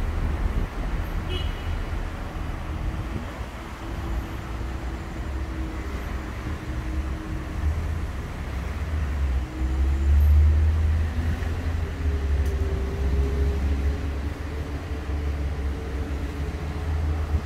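City street traffic: a low engine rumble from passing vehicles, swelling loudest about ten seconds in.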